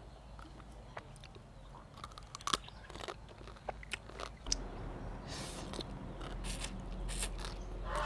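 Chopsticks clicking against a plate as food is picked up, then a person eating noodle salad: chewing and slurping noodles in several short bursts in the second half.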